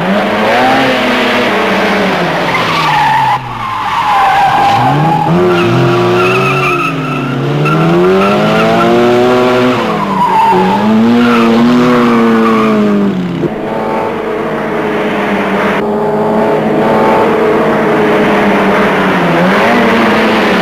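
Two cars racing hard, engines revving up and falling back again and again, with repeated tyre squeal as they skid through the corners.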